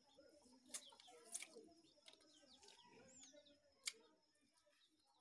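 Faint clucking of free-ranging hens, with one high falling chirp about three seconds in and three sharp clicks.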